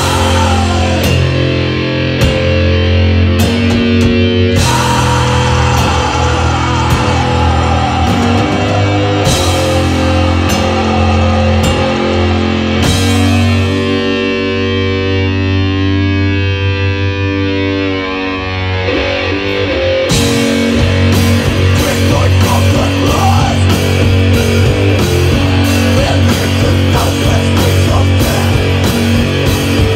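Heavy metal band playing live: distorted electric guitars, bass and drums, loud. From about 13 s to 20 s the drums and cymbals drop out, leaving held, ringing guitar chords. Then the full band comes back in with fast drumming.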